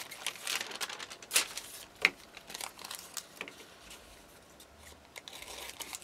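Scissors cutting a sheet of thin deli paper, with the paper crinkling as it is handled and a few sharp snips, the loudest about two seconds in.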